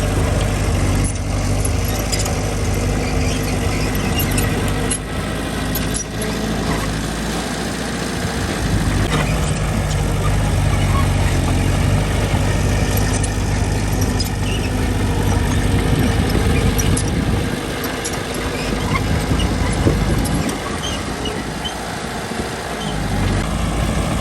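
Diesel engine of heavy earthmoving machinery running steadily. Its low engine note eases off briefly twice and picks up again, with a few light knocks here and there.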